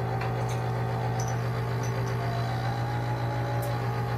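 A steady low hum, with a few faint ticks over it.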